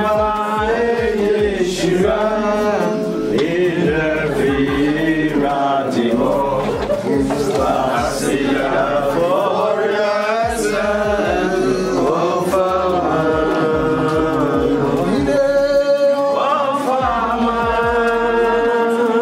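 A group of men singing a worship song together, with sustained, gliding sung lines and no gaps.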